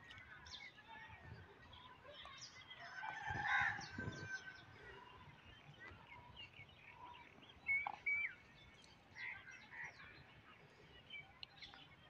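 Demoiselle cranes calling now and then in short calls. The loudest cluster comes about three and a half seconds in, and two quick calls come near eight seconds.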